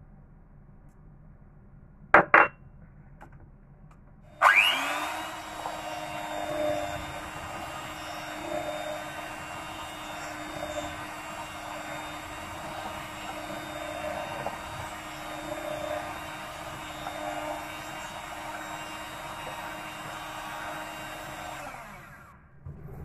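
Two sharp knocks about two seconds in, then an electric hand mixer starts and runs at one steady speed through the pandesal dough, stopping just before the end.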